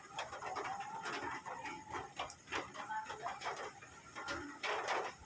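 Soft bird calls repeating, with a few brief clicks or splashes between them.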